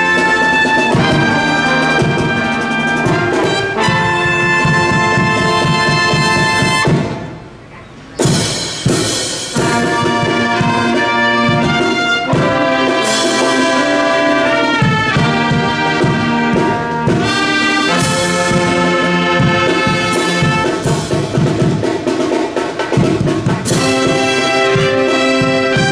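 Military field marching band playing: trumpets, trombones, saxophones and sousaphone sound sustained brass chords. The band breaks off briefly about seven seconds in, then comes back in sharply and plays on.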